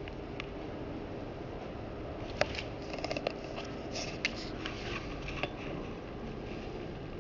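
A scatter of small, sharp clicks and taps, the sharpest about two and a half seconds in and the rest bunched over the next three seconds, over steady low room noise with a faint steady hum.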